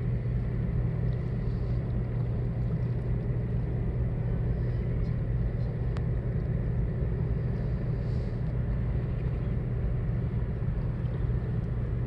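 Steady low rumble with a faint hiss above it and no gusts or breaking waves; a single faint click about six seconds in.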